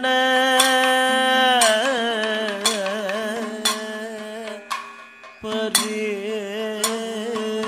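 Kathakali padam singing: a male voice holds one long even note, then moves into wavering, ornamented phrases, with a short break before a new phrase. A bell-metal gong (chengila) is struck about once a second to keep time.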